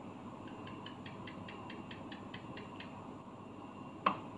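Metal spoon spreading crunchy chocolate spread over a slice of white bread: soft scraping strokes, about four a second. Near the end comes a single sharp click as the spoon is set down on the tub's plastic lid.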